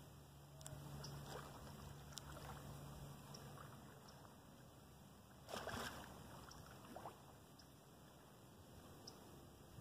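Near silence with faint outdoor background and a few tiny clicks, broken by one brief whoosh a little over halfway through.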